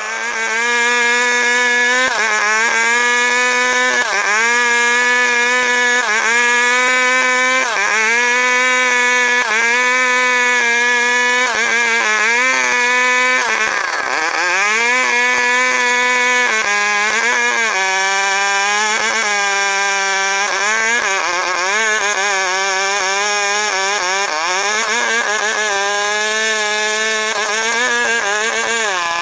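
Stihl 070 two-stroke chainsaw running at high revs while cutting through a log. Its pitch dips briefly every second or two as it loads up. About halfway through it dips deeply, then runs lower for several seconds before climbing back.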